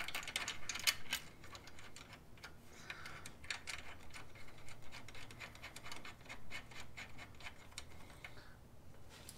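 Light, irregular metallic clicks and ticks of a nut and washer being handled and threaded by hand onto the tie-rod bolt at a UTV's steering knuckle.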